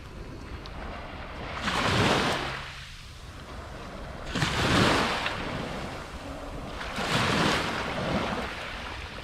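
Small waves washing up onto a shelly sand beach, surging three times about two and a half seconds apart, with wind rumbling on the microphone.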